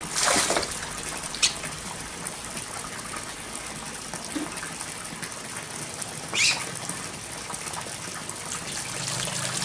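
Water running steadily in a continuous gush, with a few short sharp sounds over it: one near the start, a click about a second and a half in, and another about six and a half seconds in.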